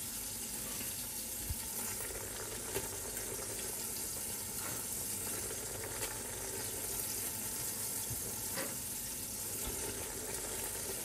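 Steady sizzle and bubbling from a pot of vegetable stew simmering and sausages frying on the hob, with a few faint knocks as chopped kale is pushed into the pot.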